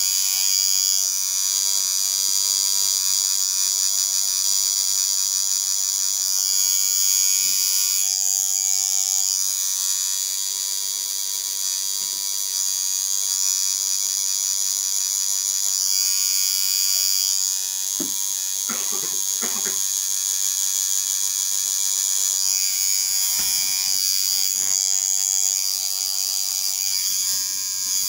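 Tattoo machine buzzing steadily as it lines a tattoo, its high whine shifting in tone every few seconds.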